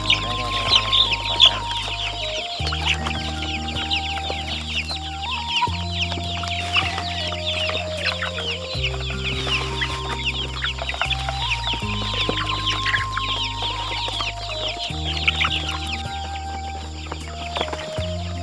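Chickens calling continuously, many short high-pitched peeps and clucks overlapping, over background music of slow sustained chords that change every few seconds with a simple melody above.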